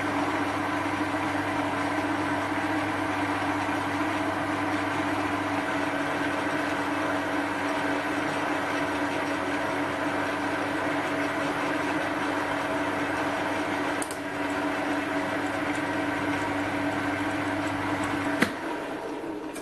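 Small Chinese bench metal lathe running steadily under power feed, its leadscrew turning and driving the carriage along to spread freshly applied Loctite 767 anti-seize over the screw. There is a click about 14 seconds in. A sharp click near the end, and the machine stops.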